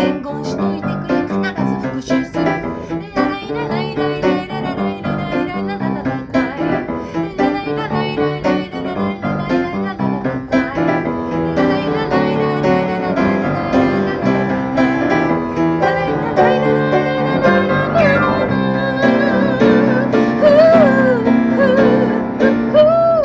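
Instrumental music led by piano, with a bowed string line. Near the end, a high melody with a wavering vibrato rises above it.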